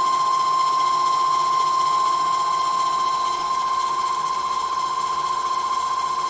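CNC lathe running with its spindle turning, giving a loud, steady high-pitched whine.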